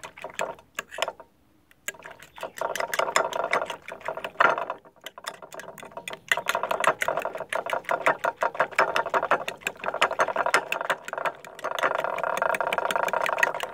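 A metal fork beating raw eggs in a ceramic bowl: rapid, steady clinking of the tines against the bowl. It pauses briefly about a second in and again near five seconds.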